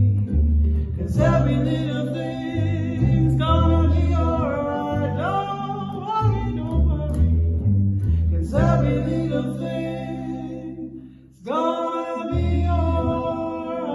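Live acoustic performance of a reggae song: sung vocals over double bass and ukulele. The music dips almost to silence for about a second around eleven seconds in, then the bass and voices come back in.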